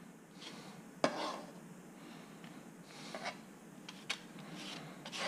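A chef's knife scraping diced fish across a plastic cutting board into a plate, in short scrapes with a sharp knock about a second in and a few light taps near the end.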